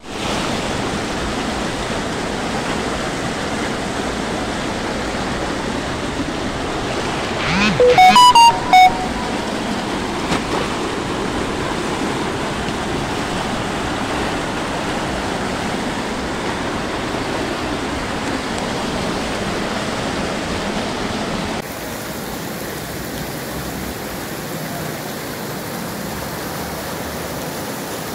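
Muddy floodwater rushing in a torrent down a street, a steady loud rush of water. About eight seconds in, a brief, louder pitched sound cuts through it, and near the three-quarter mark the rush drops a little in level.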